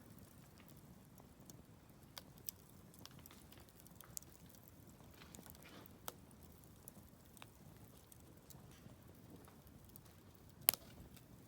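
Wood fire crackling: scattered sharp pops and ticks over a low, steady hiss, with one louder pop near the end.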